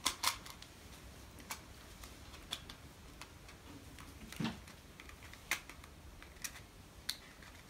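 Toy bullets being pushed one by one into a toy pistol's plastic magazine: irregular small, sharp plastic clicks.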